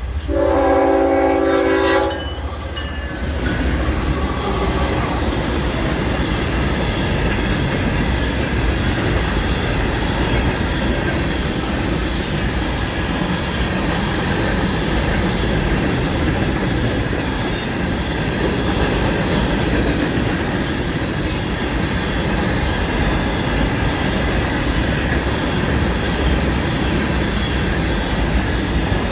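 A Florida East Coast Railway freight locomotive's horn sounds one blast of about two seconds. Then the freight train rolls past close by: a steady, loud rush of steel wheels on rail with the clickety-clack of the cars over the rail joints.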